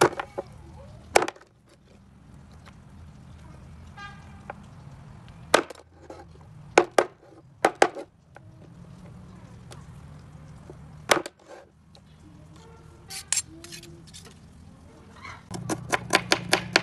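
A large kitchen knife chopping raw chicken on a wooden cutting board: single sharp chops a second or more apart, with a quick pair near the middle. Near the end comes a fast run of knife strikes on the board as a red onion is sliced.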